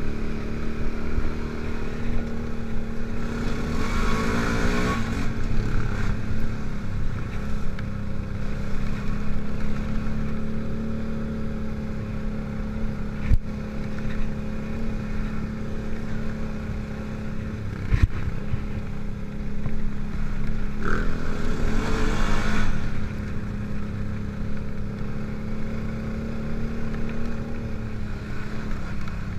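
Honda ATV engine running steadily under the rider on a dirt trail, its revs rising and falling briefly about four seconds in and again around twenty-one seconds. Two sharp knocks stand out, near thirteen and eighteen seconds.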